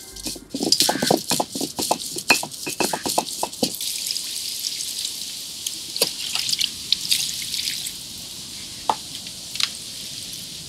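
A quick run of knocks and clicks in the first few seconds, then hands sloshing raw chicken pieces around in a pot of water: wet splashes and drips with scattered sharp clicks.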